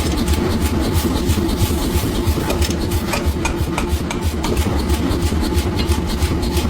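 A machine runs with a steady low hum, with irregular rasping and scraping and many small ticks over it.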